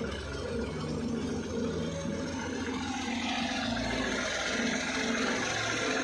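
Tractor's diesel engine running steadily as it pulls a disc harrow through dry ground. A rushing hiss grows louder about halfway through.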